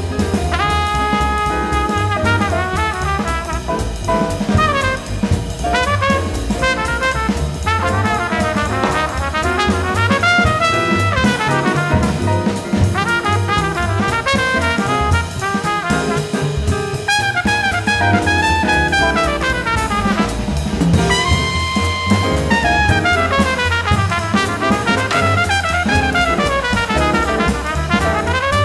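Small swing jazz combo playing live: tenor saxophone and trumpet lines with fast runs and held notes over double bass and drum kit.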